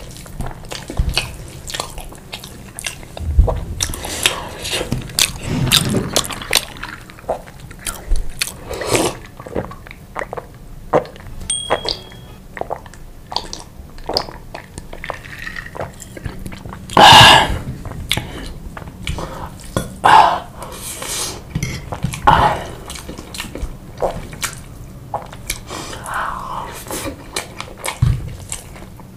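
Close-miked chewing and biting of chicken and sauced pasta: irregular wet smacks and mouth clicks, with a louder, longer wet sound about seventeen seconds in.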